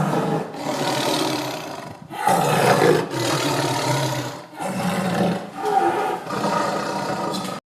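Lion roaring: a run of loud, rough roars, one after another, each about a second long.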